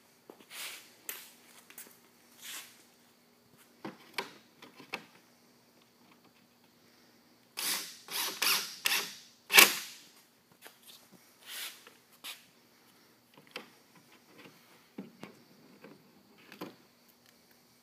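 DeWalt cordless impact driver driving screws in short bursts with a ratcheting, hammering sound, the loudest run of bursts about eight to ten seconds in, with smaller bursts and clicks before and after.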